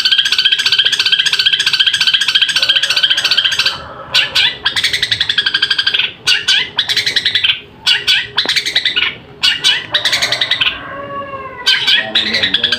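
Long-tailed shrike (cendet) singing: a fast, evenly repeated trill for the first few seconds, then a string of varied chattering notes and short calls with brief pauses, a slurred phrase that dips and rises around ten seconds in, and the rapid trill again near the end. It is a full song mixed with imitated calls of other birds (isian).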